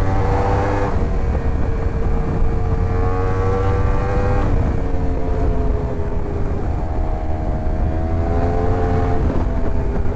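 Yamaha R1 inline-four engine running under load while riding. Its pitch climbs slowly, then drops sharply three times as it shifts up through the gears.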